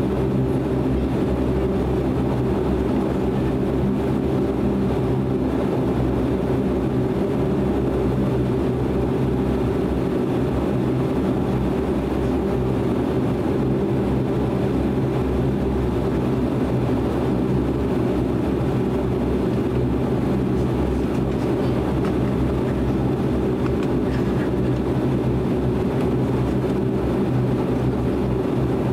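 Bombardier DHC-8 Q400's two Pratt & Whitney Canada PW150A turboprop engines heard inside the cabin while taxiing: a steady drone with several held low propeller tones.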